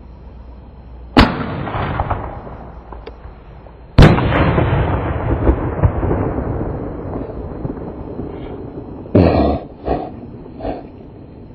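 Two loud firework bangs about three seconds apart, each followed by a long fading echo with crackling, then a few shorter, weaker bursts near the end.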